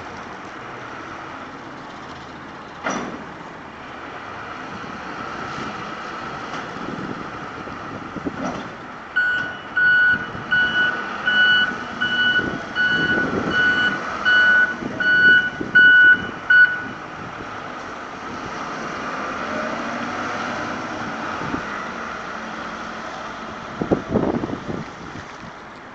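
Large forklift's engine running while it manoeuvres, its reversing alarm beeping steadily about one and a half times a second for several seconds in the middle. There is a knock early on and a few clunks near the end.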